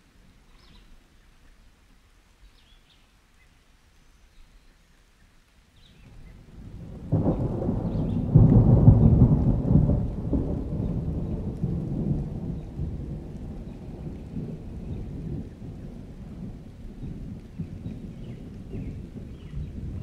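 Thunder rolling over steady rain: a deep rumble builds about six seconds in, is loudest a couple of seconds later, then slowly dies away.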